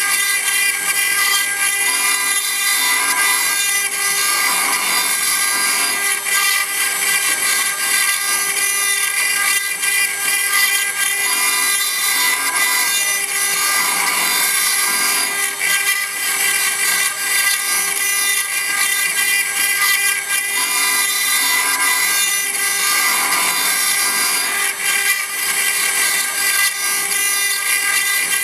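4-axis CNC router's spindle running steadily while its bit cuts stone: a constant machine whine with several fixed tones over a grinding hiss.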